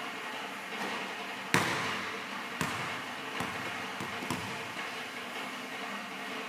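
A basketball comes down with a loud bang about a second and a half in, then bounces on the hardwood gym floor four more times, the bounces coming quicker and fainter. Each bounce echoes in the gym.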